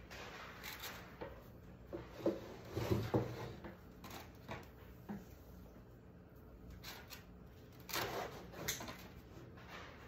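Scattered light knocks and handling noises, with a cluster of louder knocks about three seconds in and another near eight seconds.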